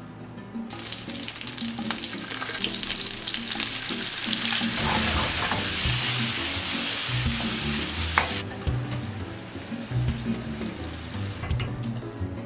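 Food sizzling in a hot frying pan, starting about a second in, loudest in the middle and dying away near the end, over quieter guitar music.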